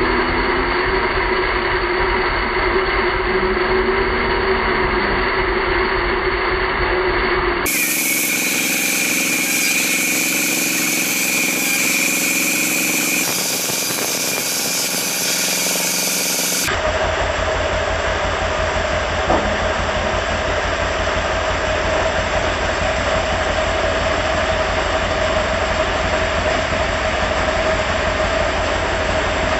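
Vertical band saw running steadily and cutting acacia wood: a constant motor hum with a held whine. The pitch and tone change abruptly twice, about 8 and 17 seconds in.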